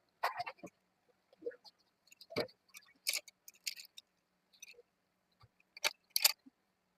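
Slate pencils being handled and unpacked: irregular sharp clicks and crisp crackles with short gaps between them, the loudest two near the end.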